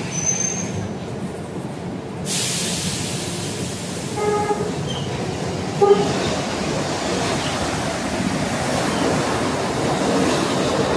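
Rubber-tyred metro train running past along the platform, a steady rush of noise that rises suddenly about two seconds in and builds as the cars pass close. Two short horn toots sound at about four and six seconds in.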